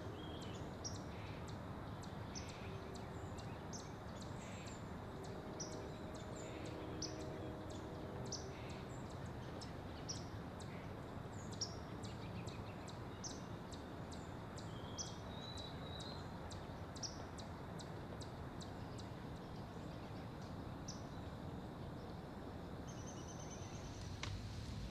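Outdoor ambience: a small bird's short, high chip notes repeated about once a second, over a steady low background hiss.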